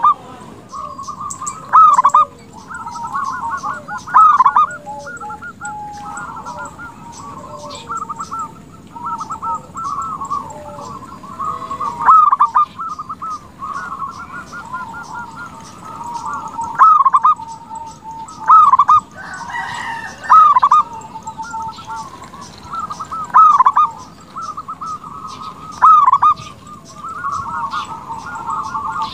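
Zebra dove (perkutut) cooing continuously: rolling, trilled coos with louder phrases every two to five seconds.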